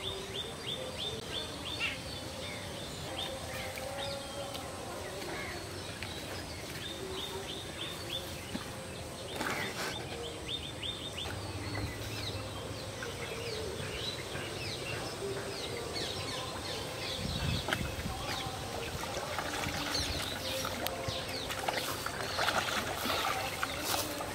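Small birds chirping in quick trains of short, high, falling notes over outdoor ambience with a faint steady high hum. In the last few seconds, water splashes as a hooked fish thrashes at the surface beside the pond bank.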